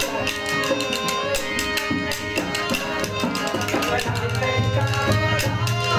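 Rajasthani folk bhajan accompaniment: wooden khartal clappers clacking in a fast, dense rhythm over a harmonium's sustained reed chords, with a dholak drum beating low, heavier in the second half.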